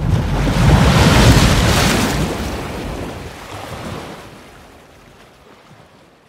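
A single surf wave breaking and washing out: a rush of noise with a deep low rumble, loudest about a second in, then slowly fading away.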